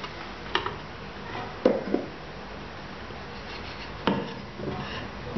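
Several knocks and clacks of a wooden board and a cup being moved about on a tabletop. There are about five separate knocks, the loudest about a second and a half in.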